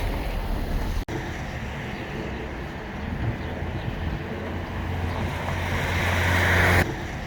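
Heavy excavator's diesel engine running with wind on the microphone; the sound swells and then drops off suddenly near the end.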